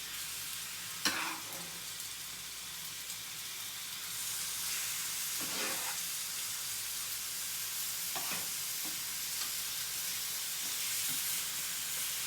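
Penne and spinach sizzling in a frying pan while being stirred, with a sharp knock of a utensil about a second in and a few scrapes later. The sizzle grows louder about four seconds in.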